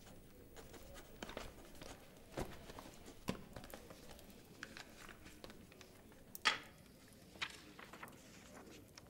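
Papers and a pen being handled at a desk in a quiet room: faint scattered clicks, taps and rustles. The loudest is a short, sharp rustle about six and a half seconds in.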